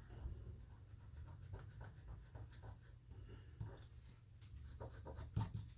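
Faint scratching and light clicking of a small screwdriver backing out the tiny screws of a Samsung Galaxy S8's frame, over a steady low hum. A few sharper ticks come near the end.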